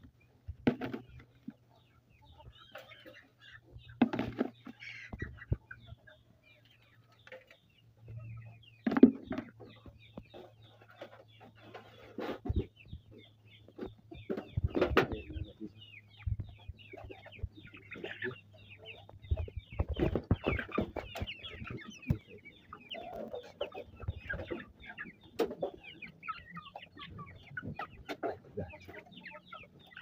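Flock of chickens clucking and calling continuously in a poultry house, with a few sharp knocks and rustles from handling feed and equipment; the loudest knock comes about nine seconds in.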